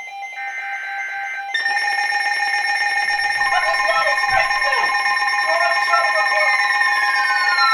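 Emergency Alert System tones from weather-radio receivers. About a second of digital header data chirps over a steady alert tone. Then several steady shrill alert tones overlap, and near the end two tones slide downward.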